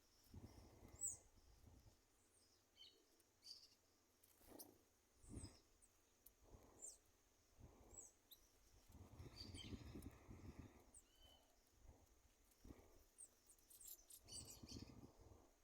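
Several wild birds calling faintly: short high chirps and quick downward-sweeping notes scattered throughout. Three longer stretches of low noise come and go: near the start, in the middle, and near the end.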